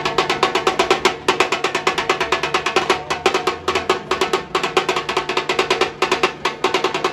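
Dhol-tasha troupe playing: many large dhol barrel drums beaten with sticks in a rapid, driving rhythm of many strokes a second.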